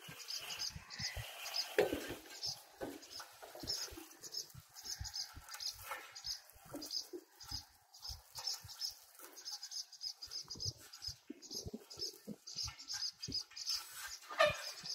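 Small birds chirping in quick repeated calls, over scattered knocks and thumps from cords being tied onto the metal frame hoops of a loader wagon.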